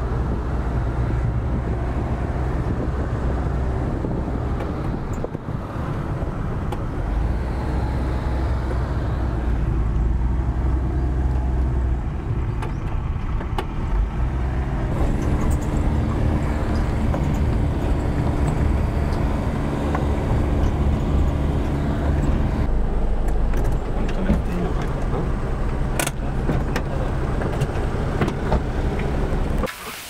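An engine running steadily at low revs, its note shifting a couple of times, with a few light knocks over it.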